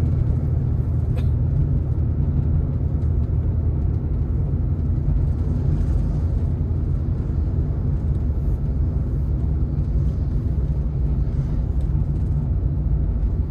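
Steady low rumble of a car's engine and tyre noise heard from inside the cabin while driving on the road.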